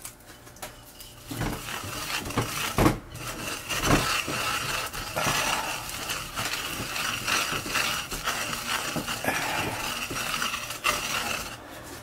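Wooden pestle grinding sesame seeds in a ridged ceramic suribachi mortar: a steady gritty rasping as the seeds are crushed against the ridges, with a few sharp knocks of the pestle in the first few seconds. The grinding stops just before the end.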